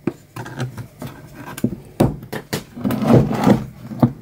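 Latch and lid of an olive-drab military spare-tube case for a GRC-9 radio being worked open by hand. Several sharp clicks and knocks, with a scraping rub about three seconds in.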